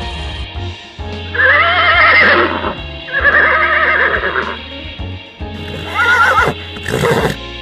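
A horse whinnying three times, two long quavering calls and then a shorter one, over background music.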